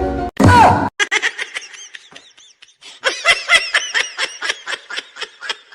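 A person laughing hard in rapid, high-pitched bursts, fainter at first and growing louder about three seconds in, after music breaks off near the start.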